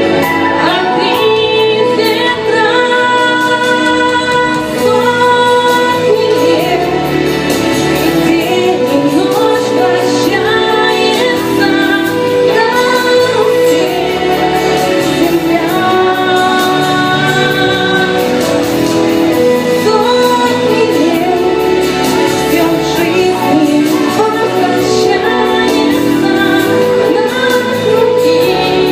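A woman singing a song over instrumental accompaniment, holding long notes with vibrato.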